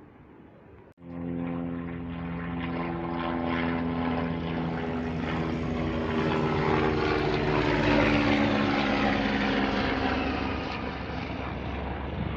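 Low-flying aircraft passing close overhead. Its engine and rotor sound starts suddenly about a second in, grows to its loudest past the middle with a slight drop in pitch as it goes by, and then cuts off.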